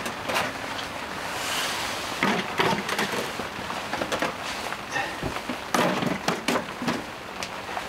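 Steady rain on a polycotton tent, with a series of knocks and clatters as wooden boards and aluminium storage containers are set down, about two seconds in and again around six seconds.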